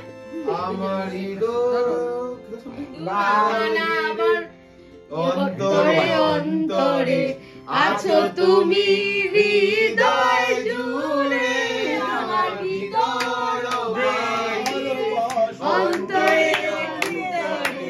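A song with a singing voice and instruments plays throughout.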